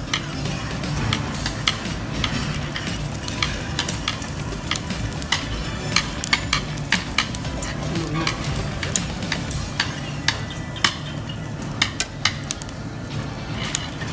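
Pork skin sizzling on a charcoal grill's wire grate, with frequent sharp metal clicks and scrapes of tongs turning the pieces against the grate, over a steady low hum.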